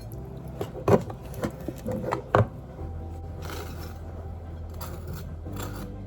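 A few sharp household knocks and clatters, the loudest about a second in and again about two and a half seconds in, followed by a steady low hum.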